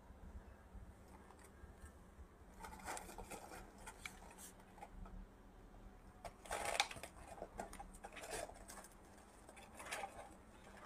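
Faint rustling and crackling with several short louder bursts: a baby monkey rummaging through loose snack pieces in a fabric toy pram.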